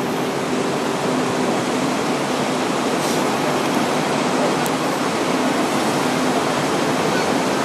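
Steady noise heard from the top deck of a Hong Kong double-decker tram, with a faint low hum underneath and no sudden events.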